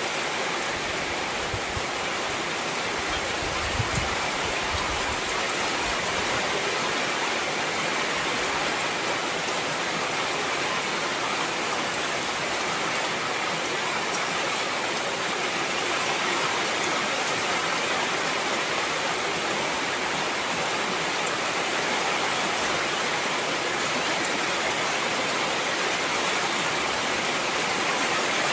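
Heavy rain falling steadily, a dense even hiss with scattered drop ticks, with a few low rumbling thumps in the first few seconds.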